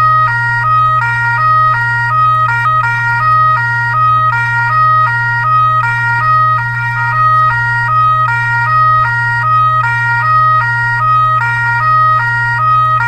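Fire-truck siren sounding a two-tone hi-lo pattern, switching steadily back and forth between two pitches, over a steady low hum.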